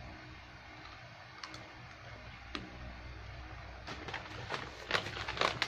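Crinkling of a foil-lined snack bag of fruit crisps being handled: a few separate clicks at first, then a dense run of sharp crackles from about four seconds in.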